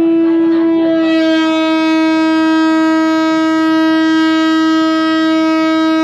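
Paddle boat's horn sounding one long, steady blast at a single pitch, turning brighter about a second in.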